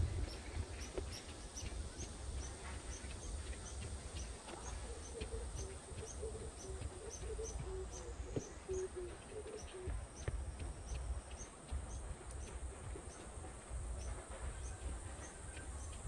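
Cicadas droning in a steady, high-pitched chorus, with short high chirps repeating about two to three times a second over a low rumble.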